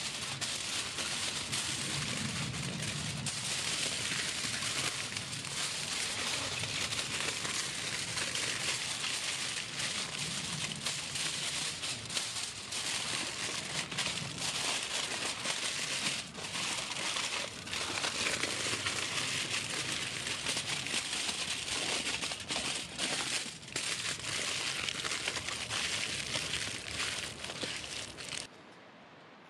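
Aluminium foil crinkling and crumpling as hands fold it and press it tightly around a piece of meat, a continuous irregular crackle that cuts off abruptly near the end.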